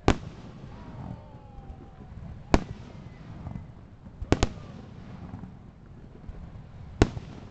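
Aerial fireworks shells bursting with sharp bangs: one right at the start, one about two and a half seconds in, a quick double bang a little past four seconds, and one near the end.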